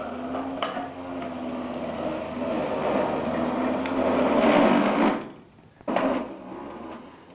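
Electric juicer's motor running as it grinds carrots, with a steady hum that grows louder about four seconds in. It cuts out about five seconds in and runs again briefly about a second later.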